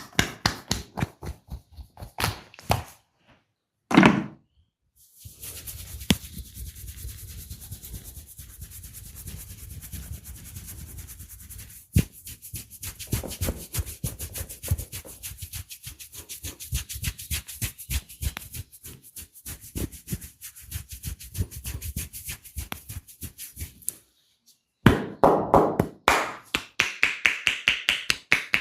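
Hands working a client's head in an Indian barber massage: quick, rhythmic tapping strokes, one heavy thump about four seconds in, then a long stretch of close rubbing with fine crackling taps. Fast tapping comes back near the end.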